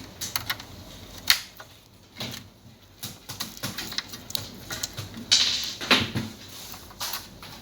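Irregular clicks and taps of small hard plastic and metal computer parts being handled during an all-in-one PC teardown, with a sharp click about a second in and a short scrape past halfway.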